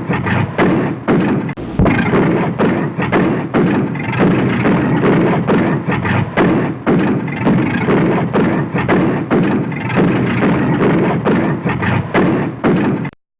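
Toyota Supra engine running hard with its exhaust backfiring in rapid, irregular pops and bangs. It cuts off suddenly near the end.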